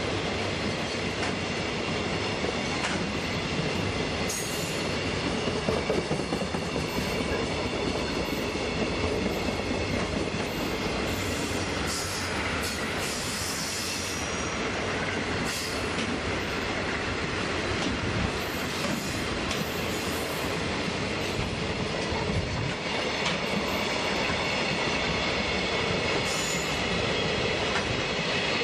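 JR Freight container train's flat wagons rolling past: a steady rumble of wheels on the rails, with brief high wheel squeals every few seconds.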